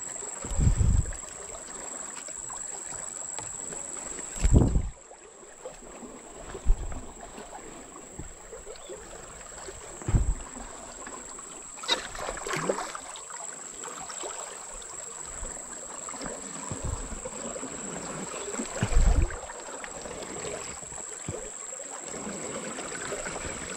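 Steady rush of a fast-flowing river current, broken by a few short low thumps.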